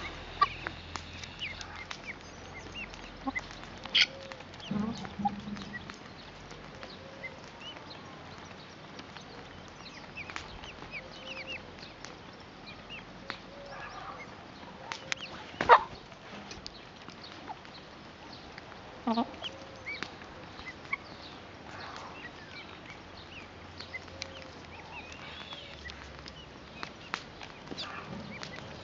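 Small flock of young guineafowl and hens feeding, with soft scattered calls and chirps. Sharp taps are scattered throughout, the loudest about halfway through.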